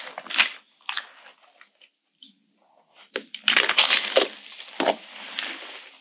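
Crunching and rustling handling noises: a few short crunches in the first second, a lull, then a dense stretch of crackling and rustling from about three seconds in.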